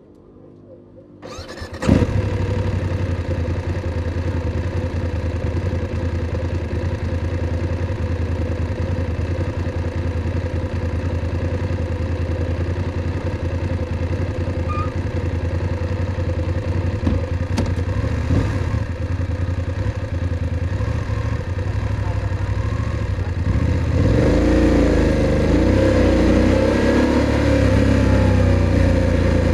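BMW F850 GS's 853 cc parallel-twin engine is cranked on the starter and catches about two seconds in, then idles steadily. Near the end it runs louder, its revs rising and falling.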